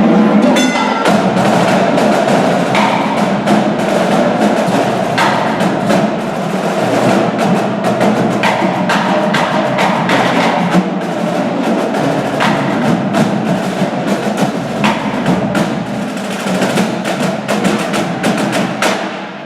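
Live percussion music: a dense, continuous run of quick wooden and drum strikes, tailing off right at the end.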